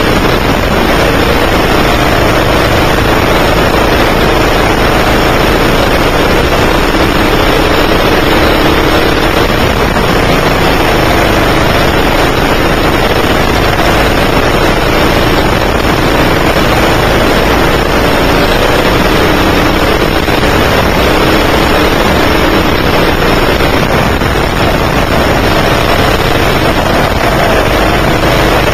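9 hp go-kart engine running hard, heard from on board the kart, its pitch rising and falling again and again as the kart accelerates out of corners and lifts into them, over a loud steady rush.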